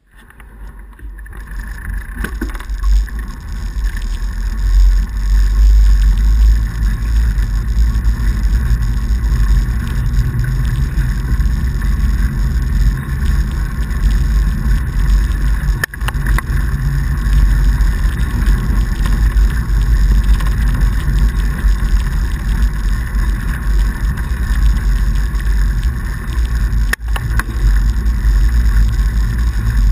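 Riding noise of a fatbike on packed snow: the wide tyres rolling and wind on the action camera's microphone make a steady low rumble. It builds over the first few seconds as the bike gets up to speed, then holds level.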